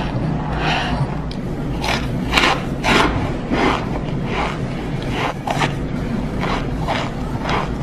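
Chewing chunks of packed cornstarch: a series of crunchy, squeaky bites about every half second, over a steady low hum.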